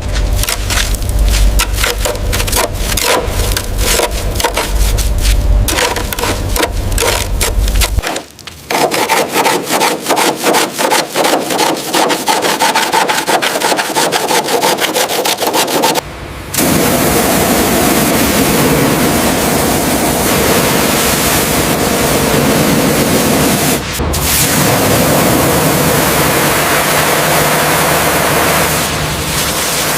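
Repeated rubbing, scraping strokes on a surface, faster and closer together after about eight seconds. From about sixteen seconds they give way to a steady hiss.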